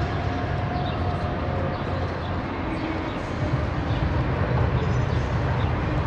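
Steady ambience of a large covered public plaza: a constant low rumble under a wash of faint distant voices, with a few small clicks and ticks.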